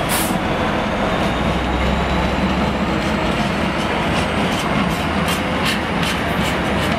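Freightliner Class 66 diesel locomotive passing, its two-stroke V12 engine giving a low drone in the first few seconds. A train of empty container flat wagons follows, rumbling and rattling, with a run of wheel clicks over the rail joints from about four seconds in.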